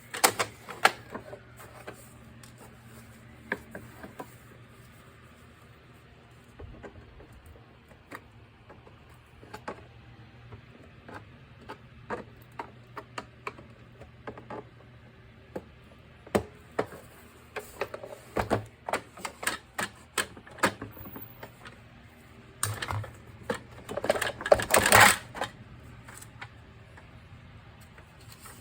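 Irregular clicks and knocks of the vacuum cleaner's plastic parts being handled, with a busier, louder run of clatter near the end.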